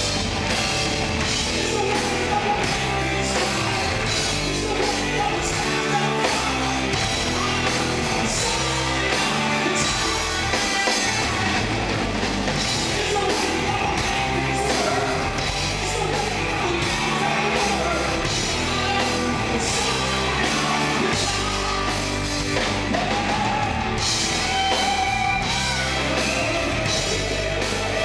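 Live hard rock band playing loud and steady: drum kit, keyboards and a singing voice over the full band mix.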